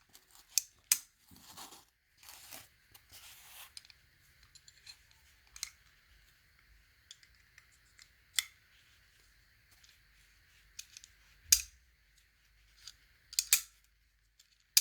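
A machined bronze key scraping in an antique B.I.A. padlock as the lock is worked, with sharp metal clicks from the mechanism scattered throughout. The loudest click comes about three-quarters of the way in, and a quick cluster of clicks comes near the end.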